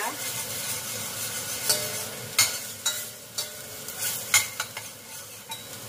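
Ground spice paste sizzling as it sautés in a little oil while being stirred. The stirring utensil scrapes and knocks against the pan several times.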